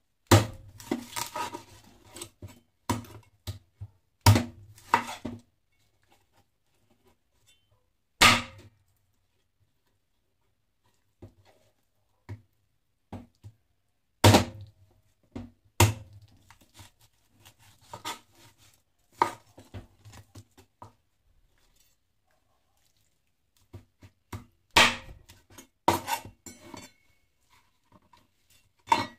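Meat cleaver chopping raw chicken on a cutting board: sharp chops, some single and some in quick clusters, with pauses of a few seconds between them.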